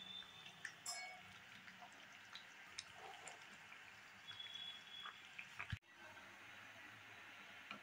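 Faint bubbling and hissing of pots cooking on a stove, with scattered small ticks: a chicken curry simmering, then a pot of water at the boil. A faint high steady tone sounds twice, about a second each time.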